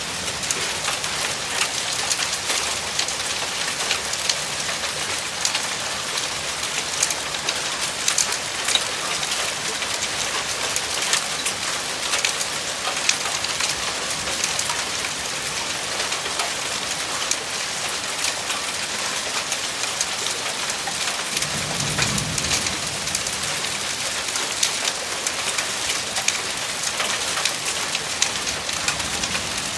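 Hail mixed with heavy rain pelting the ground, a steady dense patter of countless small ticks. A brief low rumble comes about two-thirds of the way through.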